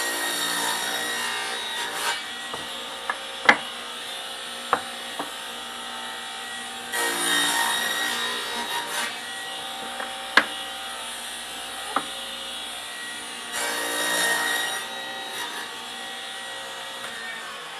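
Table saw running steadily, making three crosscuts through 2x4 lumber on a sliding sled against a stop block; each cut is a louder stretch of a second or two. Sharp knocks come between the cuts.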